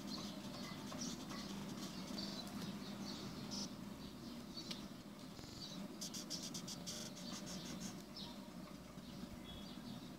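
Felt-tip marker tip squeaking and scratching on paper in many short strokes as an outline is drawn, with a run of quick strokes about six to seven seconds in, over a faint steady low hum.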